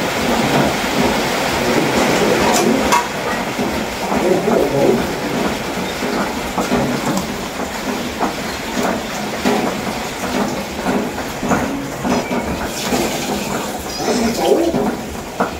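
Water spinach being picked over by hand: leaves and stems rustling steadily, with many small snaps as the stems are broken off.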